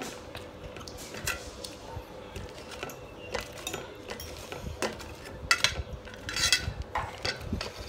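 Metal spoon and chopsticks clinking and scraping against a stainless steel tray while noodles are served from it: scattered sharp clinks, with the loudest clinks and a scrape about five and a half to six and a half seconds in.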